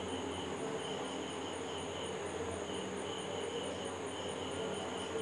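Steady, high-pitched chirping of insects such as crickets, pulsing evenly about four times a second, over a faint low hum.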